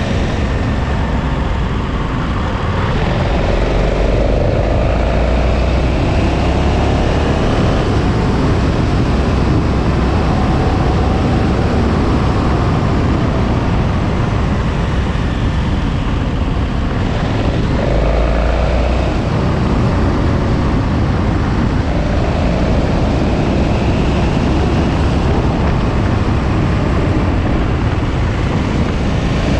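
KTM 1290 Super Adventure's V-twin engine under way, its revs rising and falling several times through the bends, over a steady rush of wind on the microphone.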